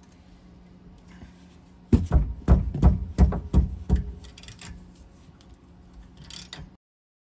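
Metal tool knocks on a rear brake caliper bracket bolt, about seven sharp knocks in two seconds, as a long wrench is worked to break the seized 18 mm bolt loose. Fainter ticks follow.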